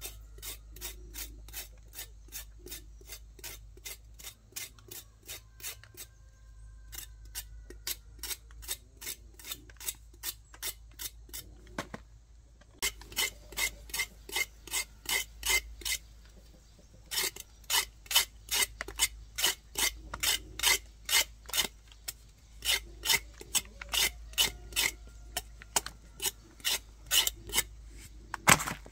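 Rhythmic rasping, scraping strokes, about three a second, in runs broken by short pauses. They turn louder about halfway through.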